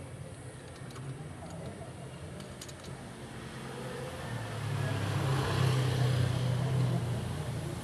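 A motor vehicle's engine hum that grows louder about halfway through and then eases slightly, like a vehicle passing close by.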